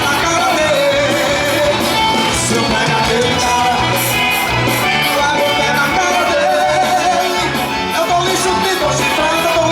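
Music with a singer over a steady beat, loud and continuous.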